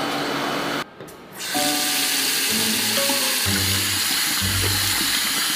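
Water running steadily from a faucet into a basin, starting after a brief drop about a second and a half in, over background music.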